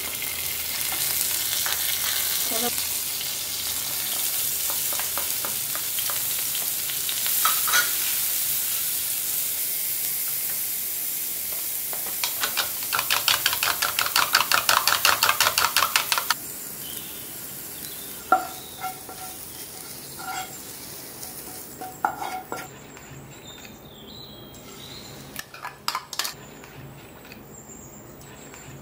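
Green chillies sizzling in hot oil in a non-stick frying pan. About twelve seconds in, a spoon beats eggs in a plastic bowl with fast, even strokes for a few seconds. After that come quieter scattered clicks and knocks of kitchen utensils.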